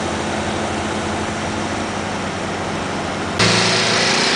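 Heavy truck diesel engines running steadily. About three and a half seconds in, the sound cuts abruptly to a louder, brighter engine sound.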